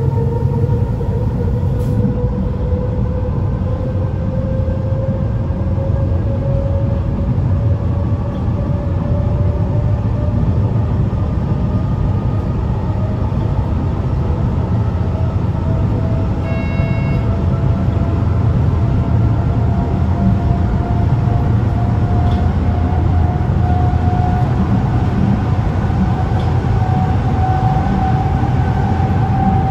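Berlin S-Bahn class 485 electric multiple unit running, heard from inside the passenger car: a steady low rumble from the wheels and track with a drive whine that rises slowly in pitch as the train gathers speed. A short high beep sounds about halfway through.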